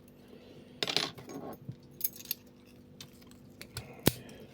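Light metallic clinks and jangles from a BurgWächter dimple padlock and lockpicking tools being handled, with a short cluster of rattling about a second in and a single sharp metal click about four seconds in.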